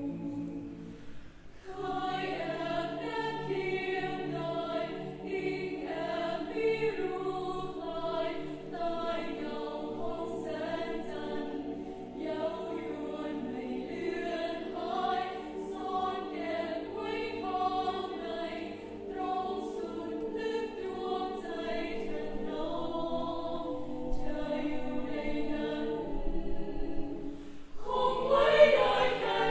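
A choir singing together in several-part harmony, with many voices holding different pitches at once. The singing comes in about two seconds in, thins briefly near the end, then comes back louder.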